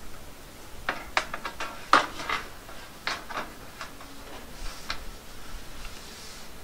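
Light metallic clicks and taps as a thin notched steel trim piece is pushed and seated against steel wall siding by hand: a quick cluster of clicks about a second in, the sharpest one near two seconds, then a few scattered taps.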